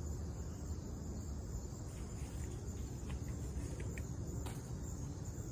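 Crickets trilling steadily, a continuous high-pitched tone, over a low rumble with a few faint ticks.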